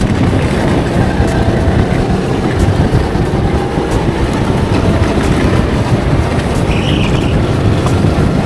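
Go-kart running at speed on track, heard from a helmet-mounted camera: a steady, rough rumble with wind buffeting the microphone.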